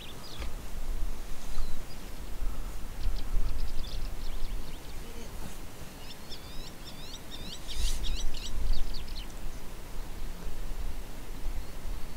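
Gusts of wind buffeting the microphone in low rumbles, with small birds chirping in quick repeated calls, most densely in the second half.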